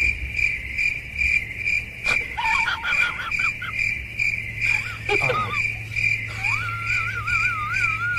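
A cricket chirping steadily at a high pitch, about two chirps a second. A few wavering, sliding animal cries are heard over it, the longest near the end.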